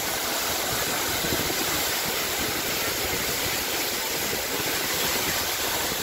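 Gega waterfall: a steady, even rush of water falling onto rocks, heard close to its foot.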